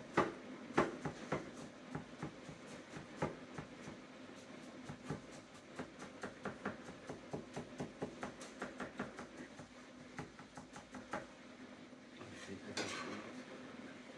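Kitchen knife chopping a red chilli on a plastic chopping board: a run of quick, uneven taps of the blade on the board, with a brief scrape near the end.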